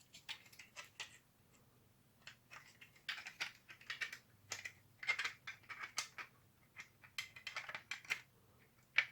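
Light plastic clicks and scrapes, irregular and quick, as a 3D-printed tac rail is pushed and worked into the cut-down plastic shell of a toy blaster, catching as it goes.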